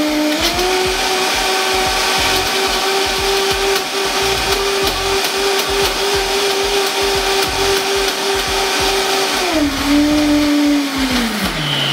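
Vitamix blender motor running as it purées a green smoothie with frozen banana: a steady whine that steps up in pitch just after the start as the speed is turned up, holds level, then drops about nine and a half seconds in and winds further down near the end as the speed is turned back.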